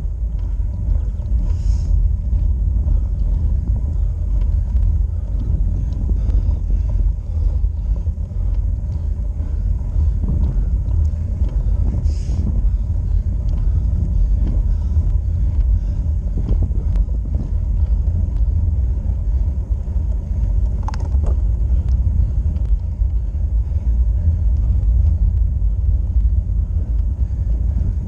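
Steady low rumble of road vibration and wind on a handlebar-mounted action camera as a road bike climbs slowly over tarmac.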